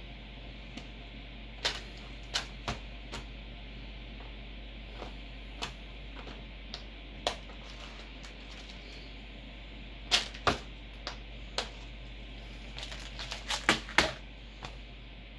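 Scattered sharp clicks from a computer mouse and keyboard, with a quick run of clicks near the end, over a steady hiss and low mains hum.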